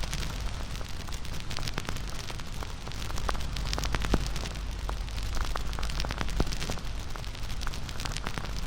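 Wood fire crackling steadily, with frequent sharp pops and snaps of burning wood over a low rumble and hiss of flames.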